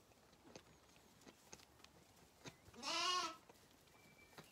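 A Zwartbles lamb bleats once, about three seconds in: a single short call that rises and falls in pitch.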